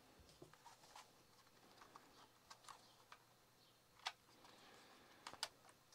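Near silence with a few faint clicks and taps of a small plastic tyre inflator being handled, the clearest about four seconds in.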